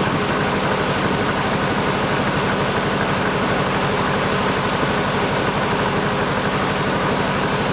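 A boat's engine running steadily, with an even low drone and a fast, regular chugging.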